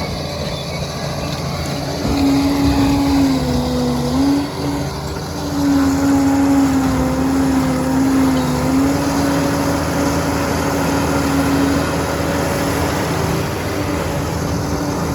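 Liebherr PR 746 crawler dozer running under load, with a steady engine whine whose pitch dips briefly about four seconds in and again near nine seconds.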